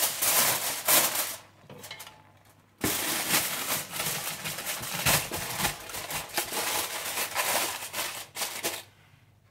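Cooked rice being stirred and turned in a steel pot: rustling, crackling scrapes, a short burst at the start and then a longer run from about three seconds in, dying away near the end.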